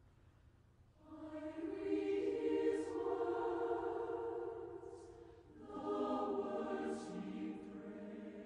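Choral music: a choir singing slow, sustained phrases. It enters about a second in, fades around the middle, then swells again.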